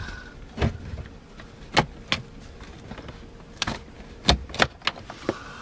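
Irregular sharp clicks and knocks, about eight of them, from hands handling parts and tools behind an F-150's dash support bar during a heater core job.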